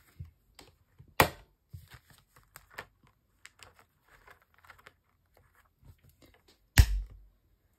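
Clear plastic binder sleeve page being handled and turned, with faint scattered crinkles and rustles. Two sharp knocks stand out, about a second in and near the end, the second with a dull thump.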